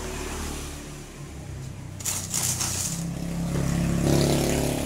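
A motor vehicle engine running nearby, getting louder from about three seconds in, with a brief scraping rustle about two seconds in.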